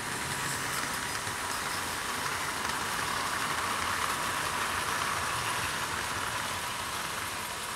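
Hornby 00 gauge West Country class model steam locomotive and its coaches running past on the track, a steady mechanical running and rolling sound that builds toward the middle and fades near the end.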